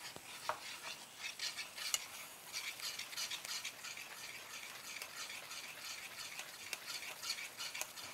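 Wooden spoon stirring a soy-sauce seasoning boiling in a nonstick frying pan: faint, irregular crackling and bubbling with the spoon's light scrapes against the pan.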